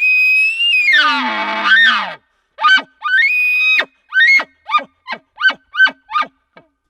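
Phelps aluminum Metal Bugle Tube blown as a bull elk bugle. It goes up to a high held whistle, drops into a low growl and climbs back, then gives a second, shorter high bugle. It ends with a run of about seven short chuckles.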